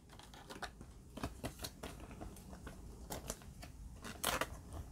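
Faint crinkles and light ticks of a thin clear plastic card sleeve being handled as a baseball card is slid into it, with a louder rustle about four seconds in.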